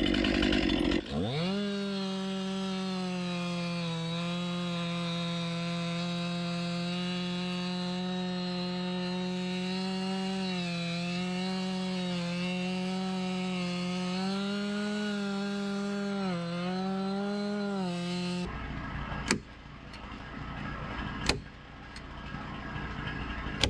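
Chainsaw with a new aggressive chain running at full throttle as it cuts through a log. Its pitch holds steady and dips briefly a few times. It stops abruptly, and two sharp knocks follow about two seconds apart.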